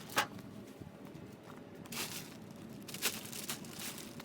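A few scattered knocks and rustles, about four in all, from kart parts being handled and lifted out of a cardboard shipping box.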